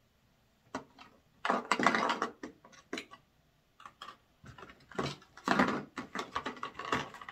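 Clear plastic blister trays and plastic wrap being handled, a run of crinkling and light clattering that starts about a second in.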